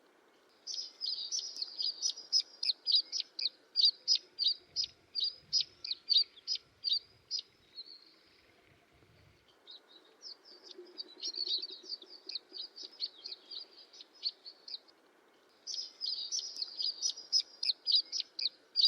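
A bird singing: fast, even series of high, sharp notes, about four or five a second, in three bouts with short pauses between.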